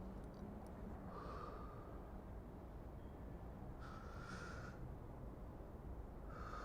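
A person breathing slowly and softly close to the microphone, three breaths about two and a half seconds apart, over a faint steady low rumble of city ambience.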